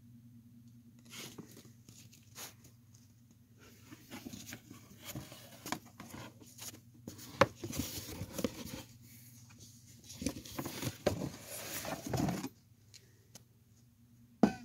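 Cardboard box and its contents being handled: scratchy rustling and scraping with sharp clicks and light knocks, busiest in the middle stretch, over a steady low hum. There is a single sharp knock just before the end.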